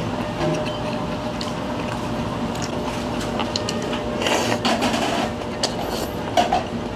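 Ramen noodles being slurped, loudest about four seconds in and lasting about a second, over a steady hum of background noise. There are a few light clicks near the end.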